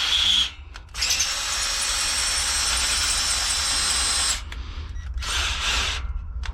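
Electric drill boring through steel plate with a freshly sharpened twist bit. It runs in stops and starts: it cuts off about half a second in, runs steadily for about three seconds, then goes in shorter pulses near the end while the last of the steel at the breakthrough keeps catching the bit.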